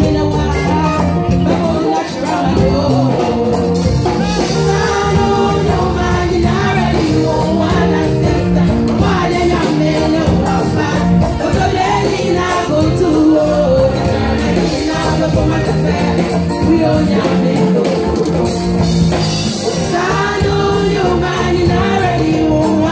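Women's gospel praise choir singing live, a lead singer at the front microphone with the choir behind, over steady instrumental accompaniment.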